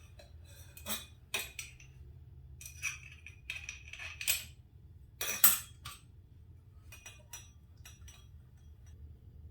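Metal parts of a motorcycle fork clinking and knocking with a faint ring, a string of separate clinks as a spring-loaded fork cap is worked down into its fork tube against the preloaded spring. The loudest clank comes about five and a half seconds in.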